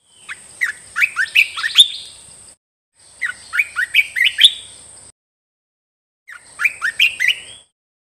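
Olive-winged bulbul singing: three bubbly phrases of quick rising notes separated by pauses, the last phrase shorter. A thin steady high tone sounds behind each phrase.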